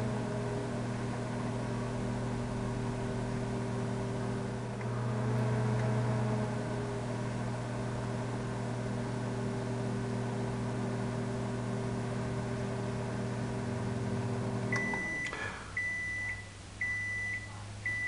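Microwave oven running with a steady hum that stops about fifteen seconds in, followed by the oven's end-of-cycle beep four times, about once a second.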